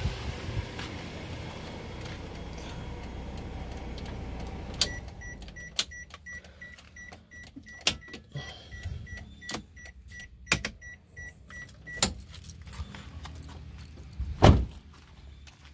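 Daihatsu Terios's engine idling and then switched off about five seconds in. A warning chime then beeps steadily for about seven seconds among clicks and key jangling, and stops, and near the end a car door shuts with a loud thump.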